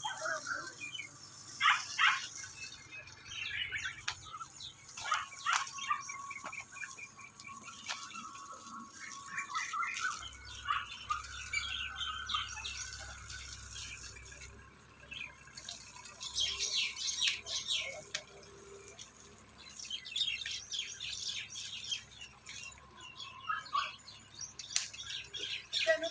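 Small birds chirping in repeated bursts of quick, high calls.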